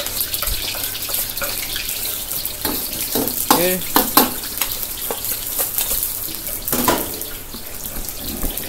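Kitchen tap left running into a sink with a steady hiss, over the crackle of flat rice noodles coated in cornflour and egg frying in hot oil.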